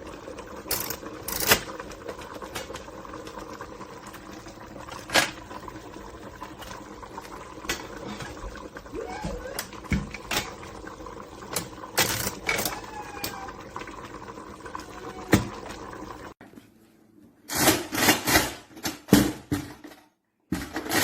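Steady water-like rushing with scattered sharp metallic clinks of a stainless steel pot and lid being handled. It stops abruptly near the end and gives way to a few seconds of louder, choppy clatter.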